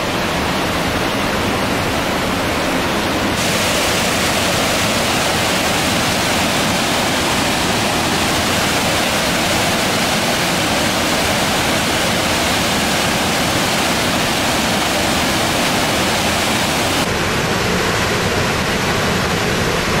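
Large waterfall pouring heavily over rocks: a loud, steady rush of water, shifting slightly in tone about three seconds in and again near the end.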